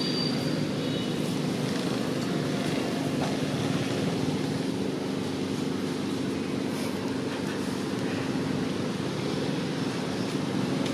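A steady low mechanical drone: an engine-like hum with a hiss over it, unchanging throughout.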